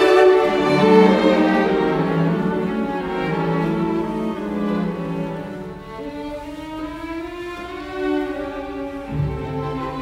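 Background music of bowed strings playing slow, long-held notes, growing softer in the middle and swelling again near the end.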